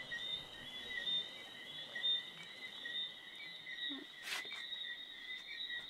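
Steady night-time chorus of crickets and other insects, a thin high chirping that pulses continuously. A brief soft noise comes about four seconds in.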